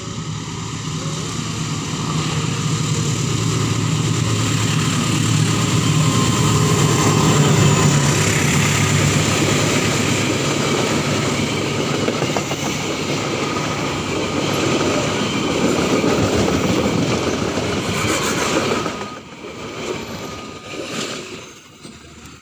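A train passing at speed over a level crossing, its wheels clattering on the rails. The noise builds over the first several seconds, holds loud while the cars go by, then drops off sharply near the end as the last car passes.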